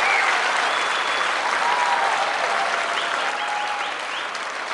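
Concert audience applauding and cheering after a song, with a few high whistles in the crowd. It eases off a little near the end.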